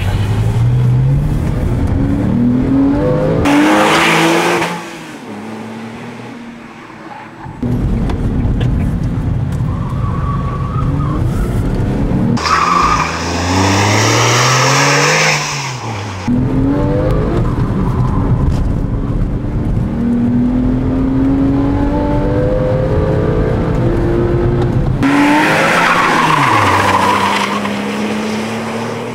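Porsche 911 Carrera 4S (997) 3.8-litre flat-six driven hard, heard from the passenger seat: revs climb again and again and fall at each gear change. There is a quieter stretch off the throttle a few seconds in. Tyres squeal in hard corners, loudest in a long burst around the middle.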